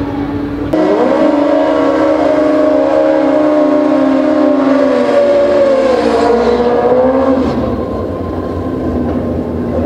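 Drag-racing motorcycle engine held at high revs during a burnout: a steady pitched note that cuts in about a second in, eases slightly in pitch, then drops away near the end.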